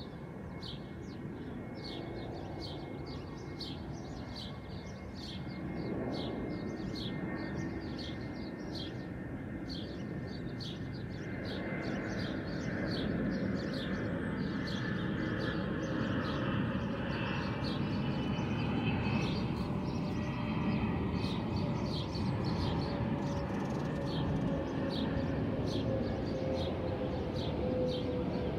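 A bird chirping over and over, about two short chirps a second, over the low rumble of an airplane passing overhead. The rumble swells from about a third of the way in and carries slowly falling tones.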